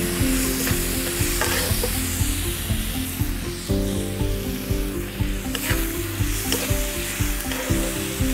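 Chopped onions sizzling in hot oil in a deep iron tawa, stirred with a metal spatula that scrapes and clicks against the pan now and then.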